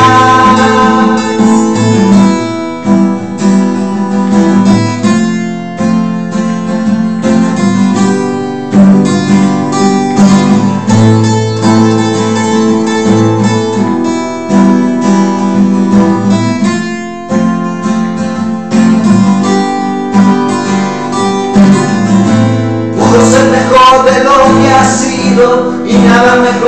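Two acoustic guitars playing an instrumental break, picked notes and strums in a steady rhythm. Singing comes back in near the end.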